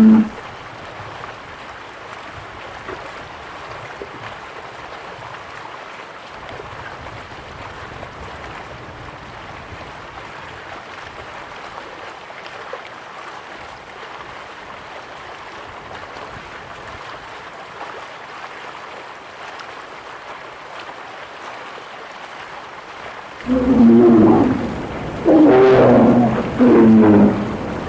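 Steady water noise, then near the end three loud, deep, wavering growling roars from a bear, each about a second long.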